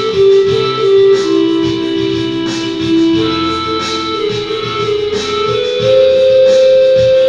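Electronic keyboard playing a slow melody of long held notes in a pan flute voice, over a regularly strummed, guitar-like accompaniment.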